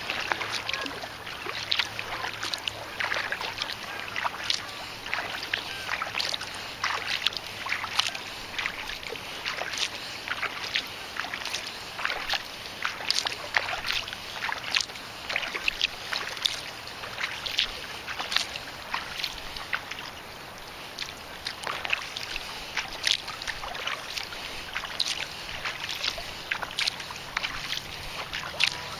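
Kayak paddling on calm water: the paddle blades dip in and drip, giving a continual run of small splashes and trickles at an uneven pace.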